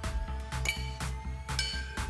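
Background electronic music with a steady beat, with two bright chiming notes.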